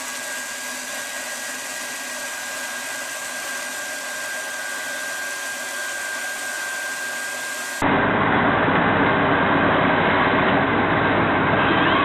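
A steady machine noise with a thin, high whine running through it, then a sudden cut about eight seconds in to a louder, deeper machine noise.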